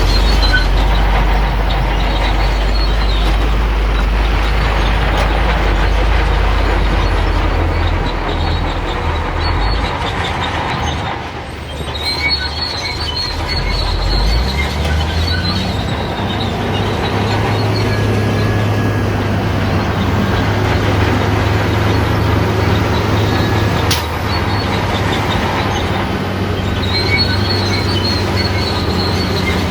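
Shantui crawler bulldozer's diesel engine working under load, with its steel tracks squealing at intervals. The engine note drops briefly about a third of the way in, then picks up again at a higher pitch.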